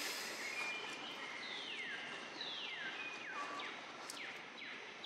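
A bird calling in a repeated series of descending whistles, each note sliding down and ending on a short held tone, over steady forest background noise.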